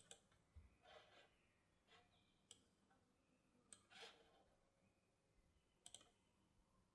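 Near silence: room tone with a few faint sharp clicks and two soft breaths.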